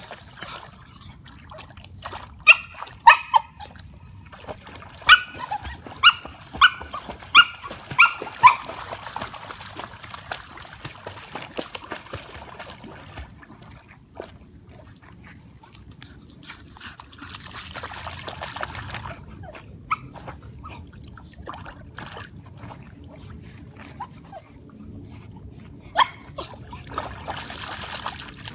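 A dog barking: a burst of about eight sharp barks in the first nine seconds, and one more near the end. In between, water splashing as the dogs swim.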